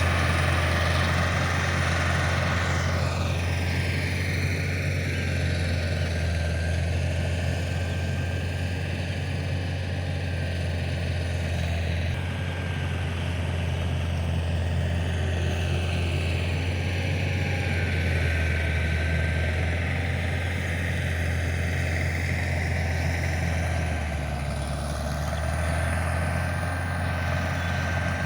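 Combine harvester's diesel engine and machinery running steadily, a deep even drone with a constant mechanical rush over it.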